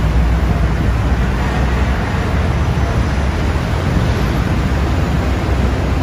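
Steady roar of heavy multi-lane highway traffic, trucks, buses and cars passing, with a low engine rumble under it.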